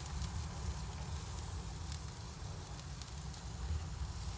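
Food sizzling on a hot barbecue grill, with scattered small crackles and pops over a steady low rumble.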